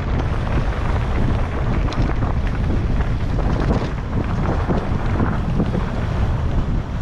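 Wind buffeting the microphone over an enduro mountain bike riding down a rough trail. Tyres roll on dirt and stones, and the bike gives frequent small knocks and rattles.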